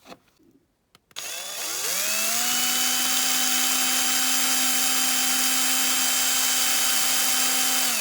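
Small electric drill starting about a second in, spinning up to speed and then running steadily while it drills into a die-cast toy car to remove its rivets.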